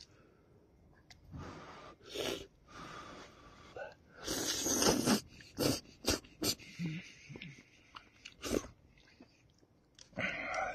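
A man slurping and chewing very hot noodles off chopsticks: a series of noisy sucking slurps, the longest about four seconds in, with short clicks of chewing between.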